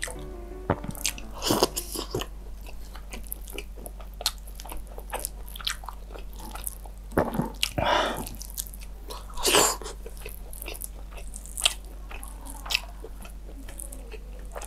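Close-miked chewing and biting of breaded chicken cordon bleu in cheese sauce: wet mouth sounds with small crunches and clicks, and a few louder chews about a second and a half in and again around seven to ten seconds in.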